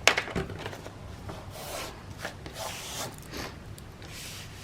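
Paper craft materials being handled on a work table: a sharp click at the start, then soft rustling and rubbing swishes off and on.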